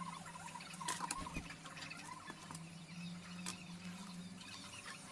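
A soldering iron working flux and solder on a USB-A plug's pins: faint sizzling with small squeaky crackles. A couple of sharp clicks come about a second in and another past the middle, over a steady low hum.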